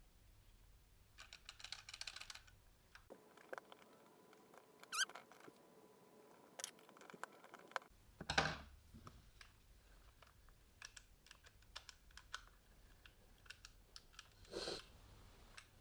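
Faint, scattered clicks and taps of small plastic parts being handled and fitted together, with a few short rustling bursts.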